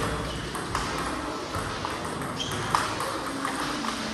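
Table tennis multiball drill: a coach feeding balls one after another and a player hitting them back, a quick irregular run of light ball clicks off the bats and bounces on the table.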